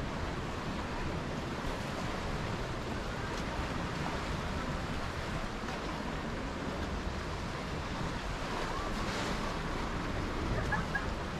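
Sea surf washing against the rocks below the cliff path, a steady wash mixed with some wind.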